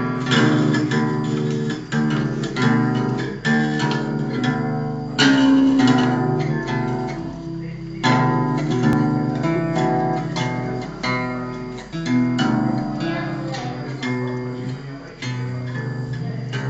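Acoustic guitar strummed and plucked by a small child: uneven, unrhythmic strums and single plucks, some a second or more apart, with the strings left ringing between them.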